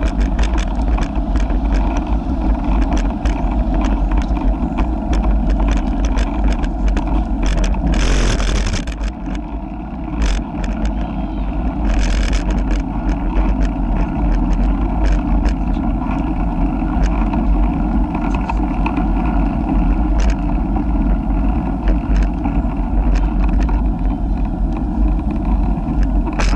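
Wind buffeting the microphone of a camera riding on a moving bicycle: a steady low rumble with frequent small clicks and rattles from the bike. Two short bursts of hiss come about eight and twelve seconds in.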